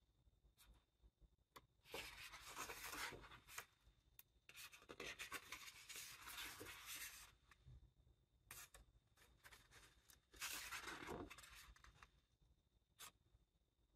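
Pages of a large illustrated art book being turned by hand: soft paper rustling and sliding in three stretches, about two, five and ten seconds in, with faint taps and ticks of paper between.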